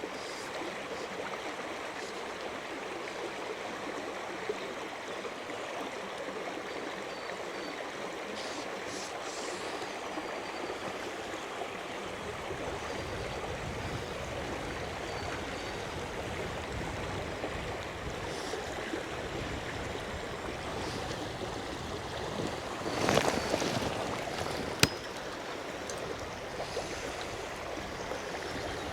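Shallow river water rushing over rocks, a steady flowing noise that gets fuller and deeper about twelve seconds in. About two thirds of the way through there is a brief louder noise, and a sharp click soon after.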